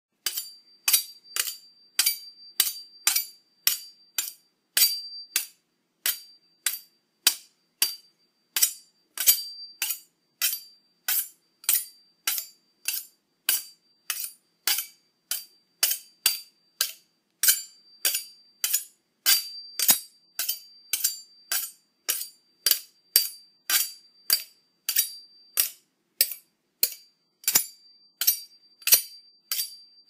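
Knife being sharpened with quick, regular strokes, about two a second, each a short metallic scrape with a high ring, with brief pauses a few times.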